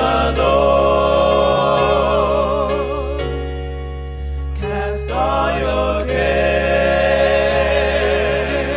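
Gospel praise music: voices singing with a wavering vibrato over sustained electronic keyboard chords. The singing eases off briefly around the middle, then comes back.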